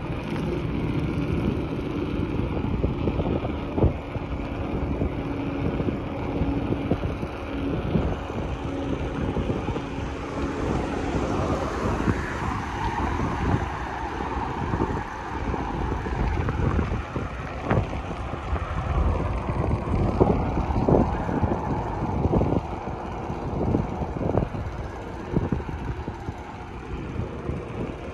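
Wind noise on the microphone while a Gary Fisher mountain bike is ridden along a paved street, over a steady rumble of tyres and road. A steady low hum runs through roughly the first ten seconds, and scattered knocks and rattles come through, more often in the second half.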